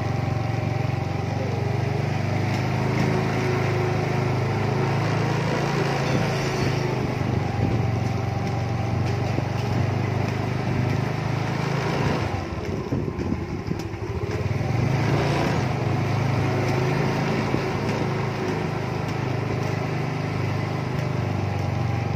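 Small motorbike engine running steadily at low road speed, easing off for a moment a little past halfway before picking up again.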